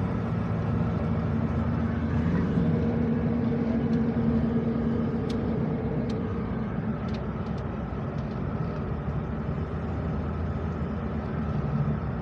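A road vehicle driving: a steady low engine and road rumble, with a few faint ticks.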